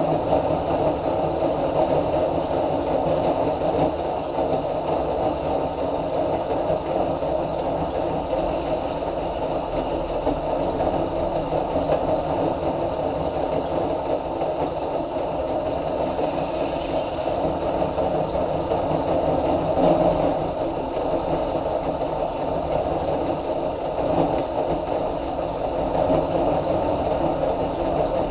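Electric drift trike's drive running steadily, spinning a PVC sleeve like a lathe, with a hand-held tool shaving the sleeve's edge.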